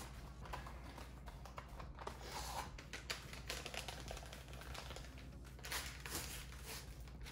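Packet of dry onion soup mix crinkling and rustling as it is handled and the mix shaken out, in irregular bursts of crackle, the strongest about two seconds in and again near six seconds.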